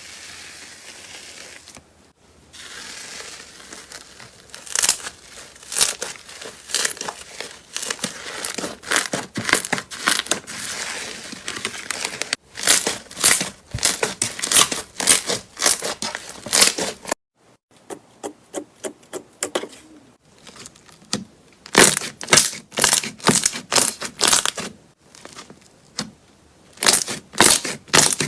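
Slime being squeezed and pressed by hand, giving quick runs of sharp crackling pops and clicks. The sound changes abruptly a few times, as between separate clips.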